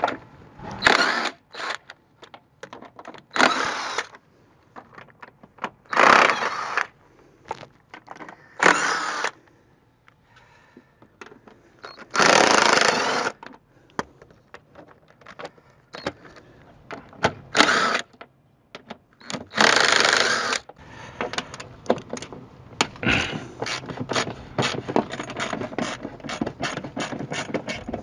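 Bolts on a crankcase ventilation filter housing being undone: a cordless power ratchet runs in about seven short bursts of half a second to a second. Over the last several seconds a hand ratchet clicks rapidly.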